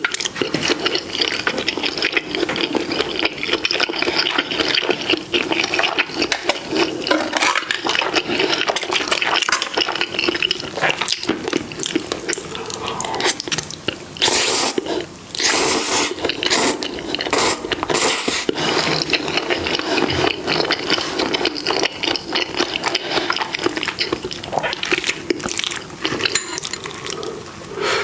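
Close-miked mukbang eating sounds: continuous wet chewing, with a few sharper clicks about halfway through.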